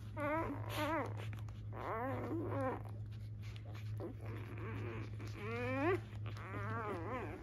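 Newborn Labrador puppies crying in a string of short, high, wavering squeals and whines, some rising in pitch, over a steady low hum.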